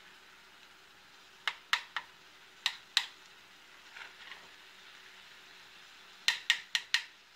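A metal spoon clinking and scraping against a stainless steel skillet as scrambling eggs are broken up in the pan. The sharp clinks come in small groups: three, then two, a softer scrape, and four in quick succession near the end.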